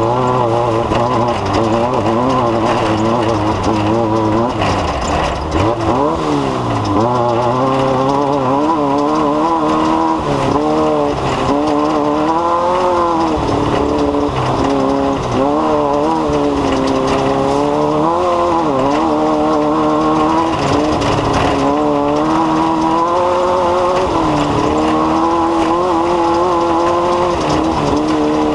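An engine running continuously, its pitch wavering up and down as the speed rises and falls.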